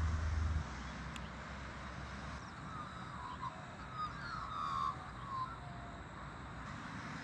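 Grey butcherbird singing a short phrase of clear, fluted whistled notes, some gliding in pitch, a few seconds in. A low hum stops less than a second in.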